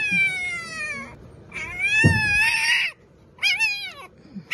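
Newborn Siberian husky puppy, eyes not yet open, crying in high mewing squeals: the distress cry of a puppy stuck in a gap behind furniture. There are three drawn-out cries, each up to about a second long and sliding in pitch, and a dull bump about two seconds in.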